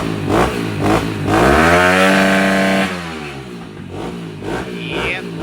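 Small dirt bike engine being revved. A few quick throttle blips, then a rev up about a second in that is held high for over a second and drops back to a lower idle. It rises again at the end.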